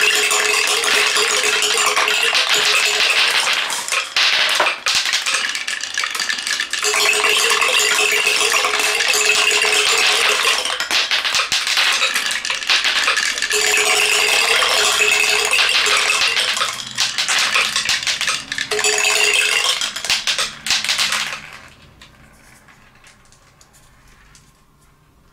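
Batches of glass marbles rolling and clattering down a Haba wooden marble run and spilling into a wooden tray of marbles, a dense rattle with a ringing hum from the wooden track. It comes in four long runs with short gaps, and stops a few seconds before the end.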